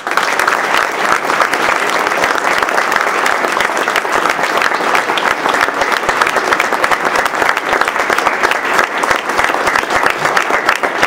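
Audience applauding: a roomful of people clapping steadily, starting suddenly and staying at an even, loud level throughout.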